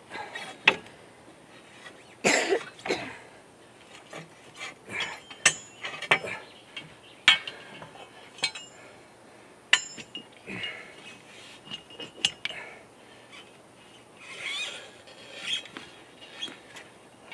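Hand tools knocking and clinking on metal excavator parts during the repair: about a dozen irregular sharp strikes, a few of them with a short metallic ring.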